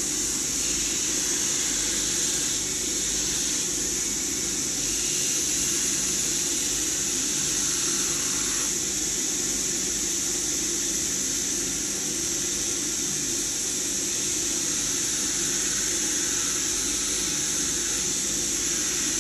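Belt grinder running with a steady hiss and low hum as steel is ground on it, throwing sparks.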